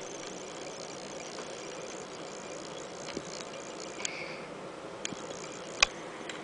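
Quiet room noise with a few faint clicks, and one sharp, louder click a little under six seconds in.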